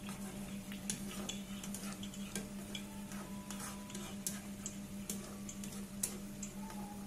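Fish and bottle gourd curry bubbling in a pan, with irregular small pops and ticks from bursting bubbles over a steady low hum.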